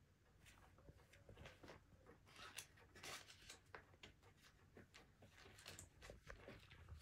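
Faint, scattered rustling of paper as a Maine Coon cat paws and scratches at a stack of papers on a wooden table.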